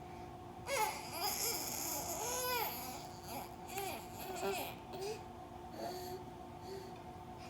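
Baby babbling and vocalizing: a run of short sounds that glide up and down in pitch, mostly in the first six seconds.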